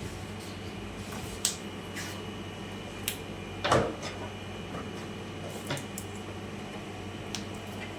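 Scattered light clicks and knocks of vegetables and kitchen things being handled, about six in all, the loudest a thud about three and a half seconds in, over a steady low hum.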